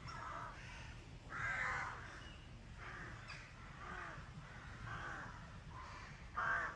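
Crows cawing repeatedly in woodland, about one harsh call a second, with the loudest calls about a second and a half in and near the end.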